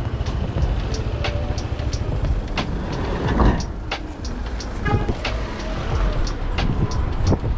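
Street noise with a steady low rumble from car traffic, broken by many short, sharp clicks and taps. The rumble swells briefly about three and a half seconds in.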